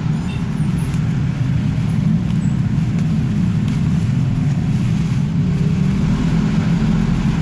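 A steady low mechanical rumble, like a running engine, with a few light clicks right at the start.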